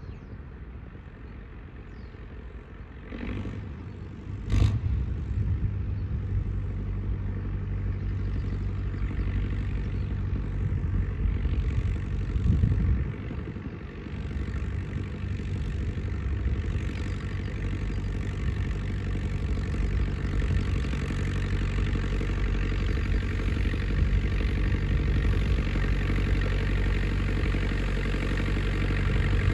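IHC 844 AS tractor's diesel engine running steadily as it pulls a meadow roller, growing louder as it approaches. A single sharp knock about four and a half seconds in.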